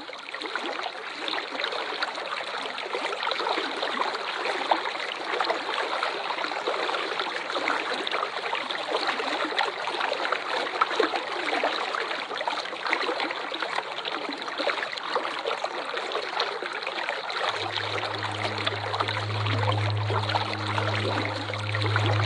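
Waterfall water rushing and splashing in a steady, even hiss. A low steady hum joins it near the end.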